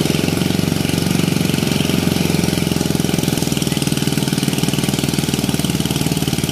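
Engine-driven paddy (rice) thresher running steadily with a rapid, even pulse as cut rice stalks are fed into its threshing drum.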